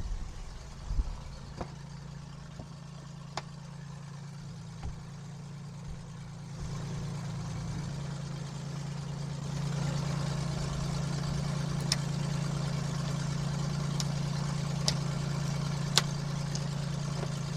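KR2 light airplane's engine idling steadily, heard from inside the cockpit, growing louder partway through. A few sharp clicks come from the canopy being worked closed and latched.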